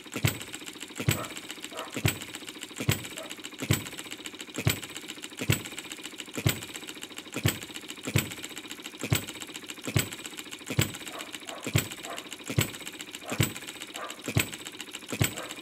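Okmo B01 model hit-and-miss engine, a scale replica of a Baker Monitor ball hopper engine, running steadily: a sharp firing bang a little under once a second, with the light clatter of its valve gear and governor latch between the strokes. It is running smoothly straight out of the box.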